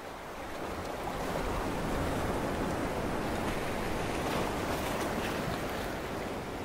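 Ocean surf washing in a steady hiss of waves, fading in over the first second or so.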